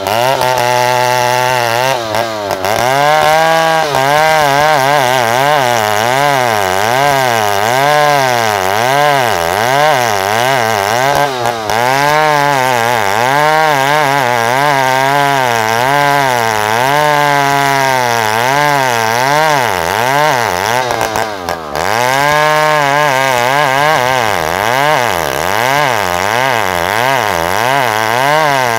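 Two-stroke chainsaw running hard while ripping lengthwise through a log of ulin (Bornean ironwood), its engine pitch sagging and recovering about once a second under the load of the cut. A deeper sag comes about two-thirds of the way through.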